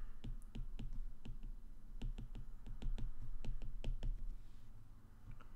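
Stylus tip tapping and clicking on an iPad's glass screen during handwriting: a quick, irregular run of small clicks, several a second, that thins out about four seconds in.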